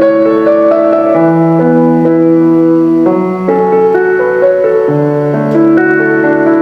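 Background music: a piano or keyboard playing a slow, gentle melody of held notes.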